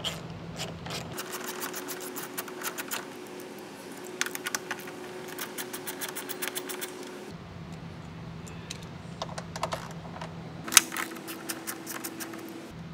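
Hand ratchet wrench with a socket clicking rapidly while backing out the 10 mm bolts that hold a car's side mirror to the door. It goes in two runs of quick clicks, a long one of about six seconds and then a shorter one after a pause, with one louder click partway through the second.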